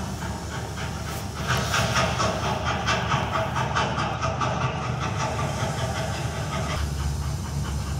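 Train sound effect from the exhibition's soundtrack: a low rumble with hiss and a fast, even clatter of wheels over rail joints. The clatter stops about seven seconds in, leaving the rumble.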